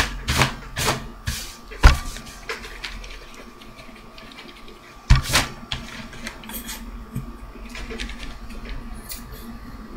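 Paper and craft materials being handled on a tabletop: a quick run of rustles and taps, with two louder thumps about two seconds and five seconds in, then only faint small ticks. A faint steady hum runs underneath.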